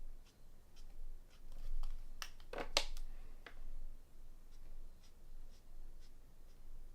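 Marker tips scratching and tapping on cardstock as a bauble is coloured in, with a few sharper clicks about two and a half seconds in.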